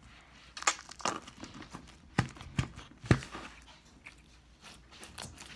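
Clear putty slime with small bits mixed in being squeezed and pushed down into a clear tube by hand, giving crackling, squelchy handling noise. Several sharp knocks stand out, the loudest in quick succession a little past the middle.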